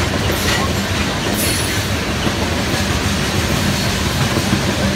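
Freight train of tank cars rolling past on the track: a steady noise of steel wheels running on the rails.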